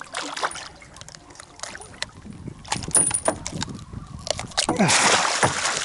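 Metal dehooking tool rattling and clicking as a red snapper thrashes and splashes on it while being shaken off the hook over the boat's side, with a longer rush of noise near the end.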